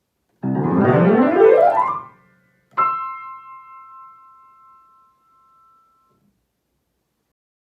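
Piano playing a fast rising glissando from the low to the upper register, then a single high chord struck and left to ring until it fades away.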